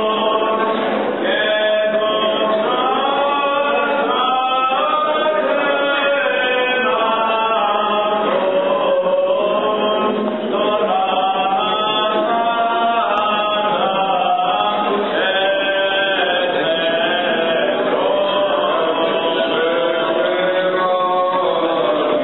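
Greek Orthodox Byzantine chant for the Easter Resurrection service, sung by a group of voices together, steady and unbroken.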